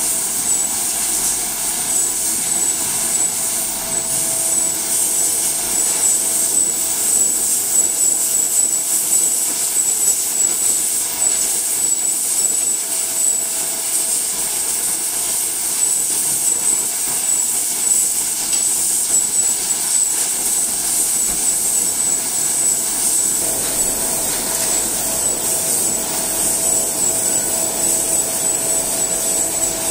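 Steady din of a snow crab processing line: conveyor and drum machinery running with water spraying over the crab. It is a loud, even hiss with a steady high whine, and one of the tones changes about three quarters of the way through.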